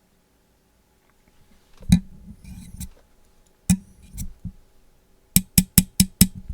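Sharp mouth clicks and pops: a single one about two seconds in, another near the middle with a few softer ones after, then a quick run of five at about four or five a second near the end.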